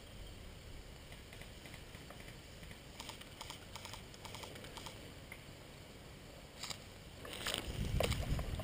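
Faint, scattered small clicks and taps. Near the end they give way to louder rustling, knocking and rumbling handling noise as an airsoft rifle is brought up against a wooden barricade.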